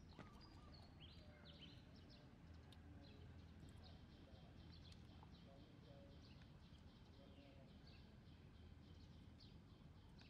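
Near silence: faint outdoor ambience, a steady low hum with a run of small high chirps repeating a few times a second.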